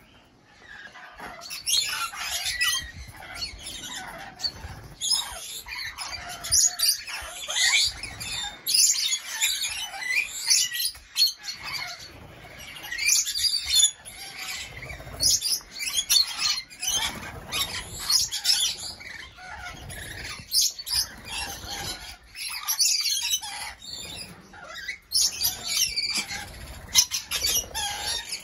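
A flock of rainbow lorikeets calling, a busy mix of sharp screeches and chattering chirps that comes in irregular bursts.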